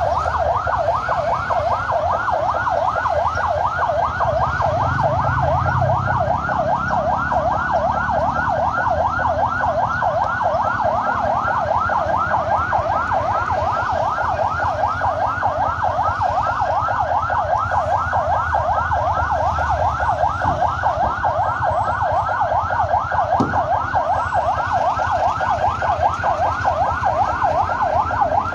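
Emergency vehicle's electronic siren in a fast yelp: rapid rising sweeps, about four a second, held steadily over a low engine rumble.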